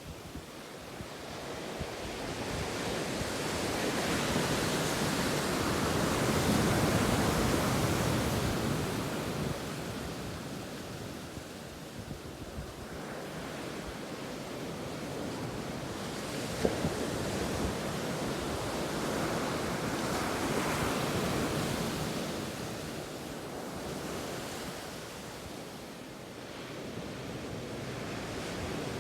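Ocean waves breaking on a beach, the surf swelling and easing in slow surges, the loudest about a quarter of the way in and again past two thirds, with light wind on the microphone.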